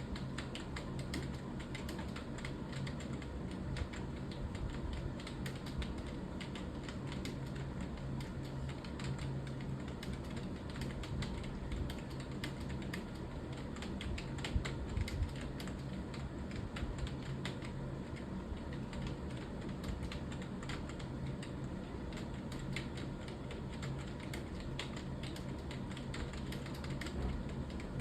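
Continuous rapid typing on a computer keyboard, a steady stream of key clicks over a low steady hum.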